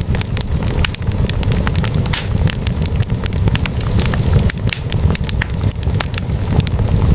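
Wood fire burning in a fireplace: many sharp, irregular crackles and pops of burning logs over a steady low rumble of flames.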